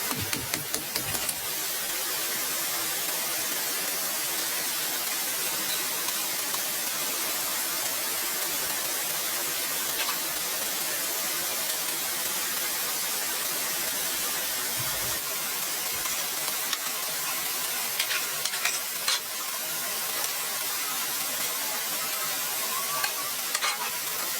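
Steady hissing noise, with a few faint clicks now and then.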